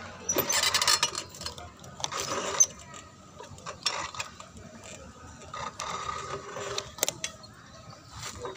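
Bicycle rattling and clicking as it rolls along, with irregular bursts of clatter and a few sharp knocks.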